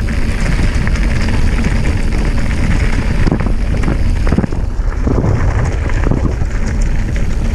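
Mountain bike descending a rough dirt and leaf-covered forest track: wind buffeting the microphone over a loud rumble of tyres on the ground, with the bike rattling and knocking over bumps.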